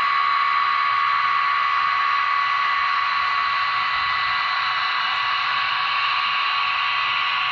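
HO scale model train running past, a steady high whine over a hiss that holds level throughout.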